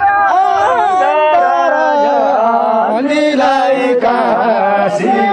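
Traditional Nepali folk tune performed by a panchebaja musician, sung and played on the sahanai, a double-reed shawm. It is a continuous melody of long, wavering notes with many ornamental bends.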